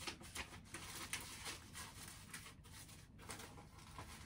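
Faint rustling and shuffling of paper sheets and clear plastic folders handled by hand, in short scattered bursts that thin out after about two seconds.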